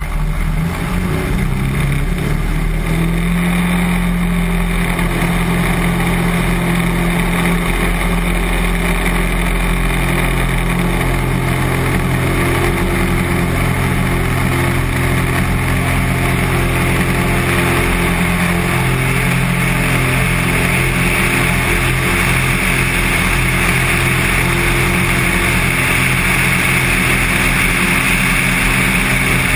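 Cessna 182 single-engine light aircraft taking off: the piston engine and propeller run at steady full power through the takeoff roll and lift-off. A rush of air grows louder in the second half as the plane gathers speed and climbs.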